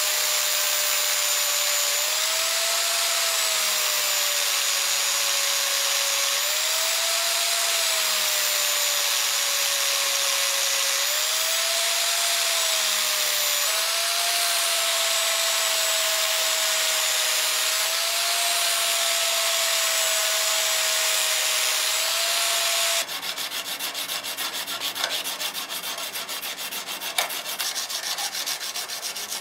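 Power sander with a sanding disc grinding a steel knife blade: a steady rasping run with a whine that dips and rises in pitch every few seconds. About 23 s in it stops, and fast back-and-forth hand sanding of the wet blade follows.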